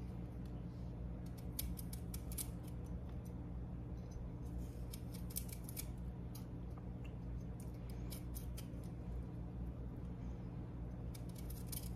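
Small knife peeling the skin off a raw kohlrabi: many short, crisp, irregular cutting snicks as the blade shaves strips of skin away. A steady low hum runs underneath.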